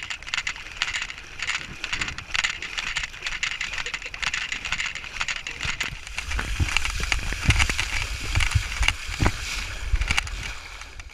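Shallow water sloshing and splashing around a camera held at the waterline, with many small splashes. From about six seconds in it grows heavier, with low rumbling of water against the microphone.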